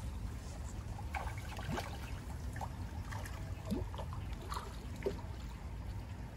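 Shallow stream trickling over stones, with small irregular splashes and drips as hands work a fishing net in the water.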